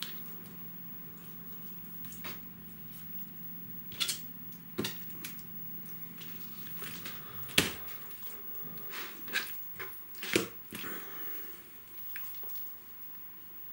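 Fixed-blade knife cutting up a raw chicken on a plastic cutting board: wet squishing of skin and meat with scattered knocks and clicks of the blade on the board, the sharpest about halfway through and a quick cluster a couple of seconds later. A faint low hum underneath stops about halfway.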